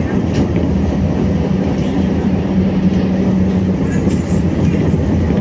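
BKM-60102 tram running along the track: a steady rumble of wheels on rails with a low hum from the running gear.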